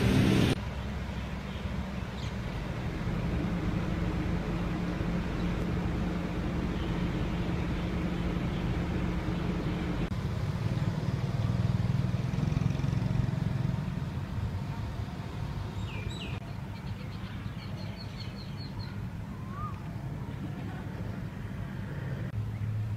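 Outdoor background sound carrying a steady low engine hum. A few short bird chirps come in about two-thirds of the way through.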